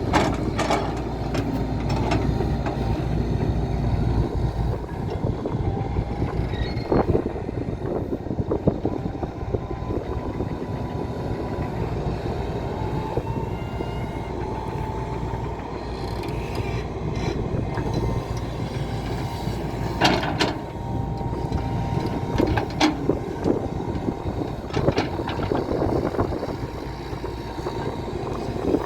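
JCB JS175W wheeled excavator's diesel engine running steadily, with a faint whine and scattered metal clanks and knocks, the loudest about twenty seconds in.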